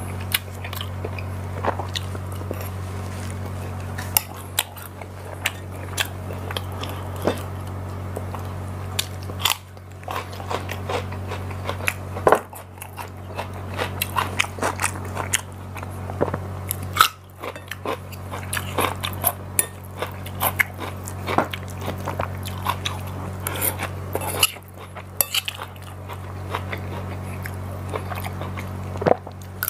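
Close-miked eating: chewing and crunchy bites of food, with a fork and spoon clinking and scraping against a plate, as many short irregular clicks.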